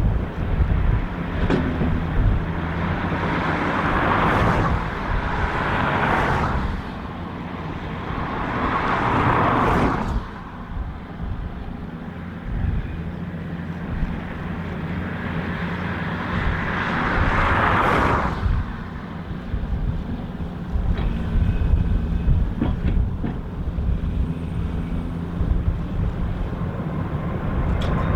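Boeing 747 jet engines rumbling low and steady at an airfield, with several gusts of wind buffeting the microphone.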